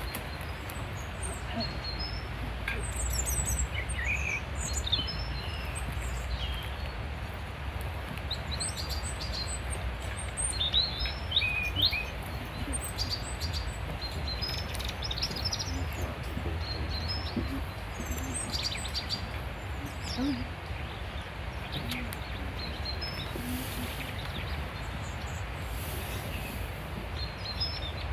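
Small songbirds chirping and calling in short, scattered bursts of high notes, over a steady low outdoor rumble.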